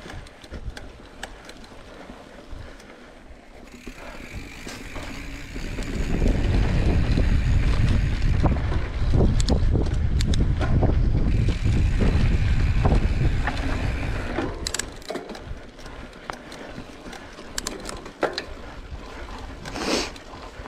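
Mountain bike being ridden along a dirt trail: tyres rolling with the frame and parts rattling and knocking over bumps, and wind buffeting the microphone. The rushing grows much louder from about six seconds in and eases off again after about fourteen seconds.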